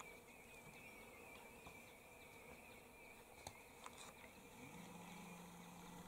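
Near silence with a faint, wavering high-pitched insect buzz. A few faint ticks fall around the middle, and a low hum comes in about two-thirds in.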